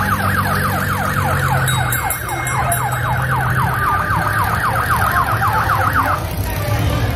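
Siren sounding a fast repeating falling sweep, about four or five sweeps a second, which cuts off about six seconds in. A vehicle engine runs low underneath.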